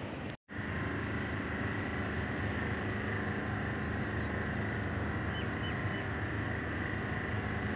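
Steady outdoor background noise that cuts out completely for a moment just after the start, then carries on evenly. About five seconds in come three faint short chirps.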